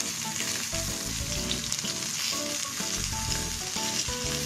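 Flour-dusted chicken thigh pieces searing and sizzling in oil in a frying pan, over light background music.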